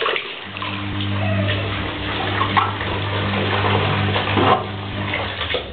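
Bathwater sloshing and splashing in a bathtub as a pug is washed, with a steady low hum from about half a second in that stops near the end.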